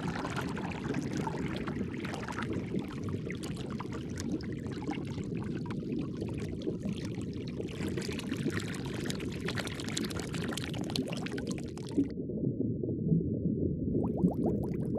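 Aquarium water sound: a steady low rush of water with fine trickling and bubbling over it. The trickling layer drops away sharply about twelve seconds in, leaving the low rush, and a quick run of bubbling starts near the end.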